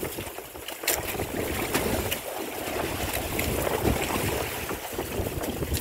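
Wind buffeting the microphone over waves lapping at a small wooden fishing boat on choppy sea, with a few short clicks about a second in.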